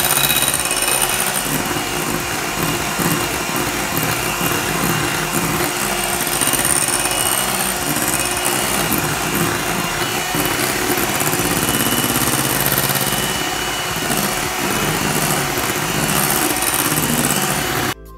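Handheld electric mixer running steadily at high speed, its beaters whisking eggs and sugar into a foam in a glass bowl; it switches off suddenly near the end.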